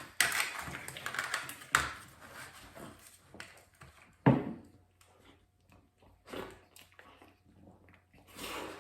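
Close-up sounds of a man eating chocolate pie fast: chewing, mouth noises and breathing, with a few sharp clicks and one louder knock a little after four seconds in.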